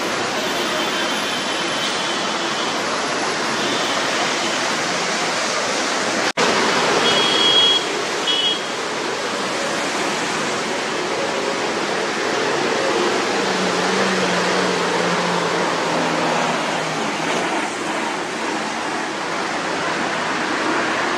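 Traffic on a rain-soaked road: a steady hiss of tyres swishing through water with the engines of passing cars, auto rickshaws and motorbikes. Short high horn beeps sound near the start and again about seven seconds in, and a heavier engine passes in the middle.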